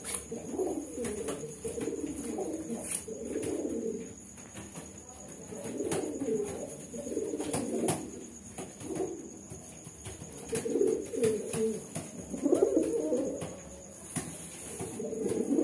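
Domestic pigeons cooing: low, rolling coos in repeated bouts of a second to several seconds with short pauses. This is the bow-coo of a male puffed up in courtship display toward another pigeon.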